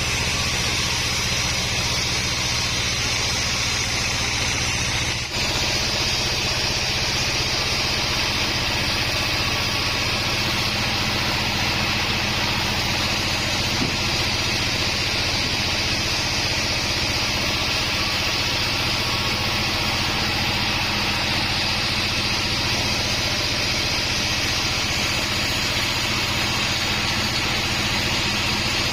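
Band sawmill machine running steadily with an even mechanical hum and hiss, dipping briefly about five seconds in.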